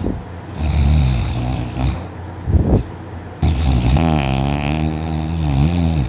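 A woman snoring very loudly in her sleep. There are two long snores: the first starts about half a second in, the second, longer one starts about halfway through, and a short breath comes between them.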